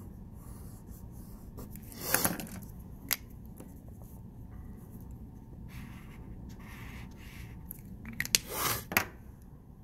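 A pen, then a highlighter, rubbing across paper in short writing and marking strokes. There is a sharp click about three seconds in.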